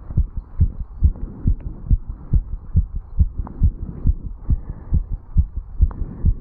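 Human heartbeat heard through the chest wall over the mitral valve area, beating fast and regular after jogging up stairs: a quick series of dull low thumps.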